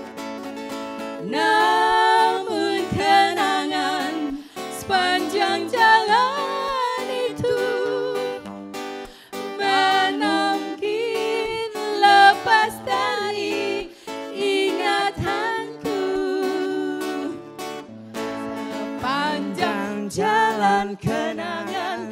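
Live singing into microphones with acoustic guitar accompaniment: a slow Indonesian pop ballad, with women's voices carrying a melody that bends and slides in pitch.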